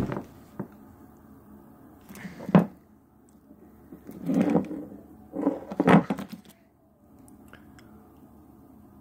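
A blade chopping into a stack of playing cards, sharp knocks on each blow. One comes right at the start and another about two and a half seconds in, then a heavier cluster of strikes between about four and six seconds in.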